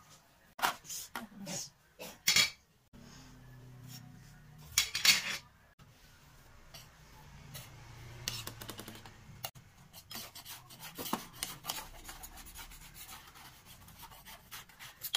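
Kitchen utensils and baking pans being handled: sharp clinks and knocks in the first few seconds, then scraping and rubbing with scattered clicks.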